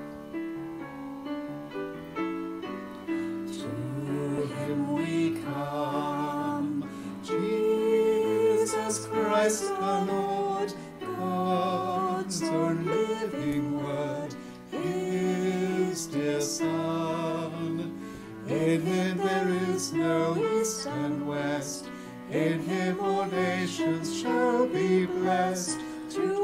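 A grand piano accompanying a small group of voices, women and a man, singing a hymn. The piano plays alone for the first few seconds before the voices come in.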